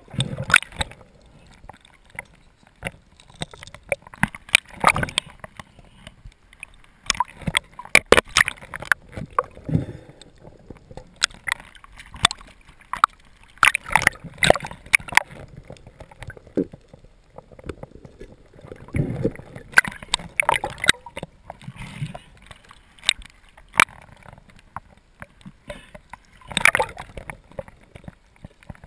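Underwater handling noise of spearfishing gear: irregular clicks and knocks of the spear shaft and metal stringer clips, with gurgling and sloshing water, heard muffled through a camera's underwater housing as a speared grouper is worked onto the stringer.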